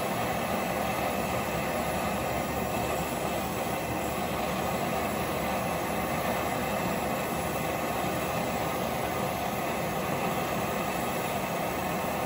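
Steady mechanical hum and hiss of a running machine.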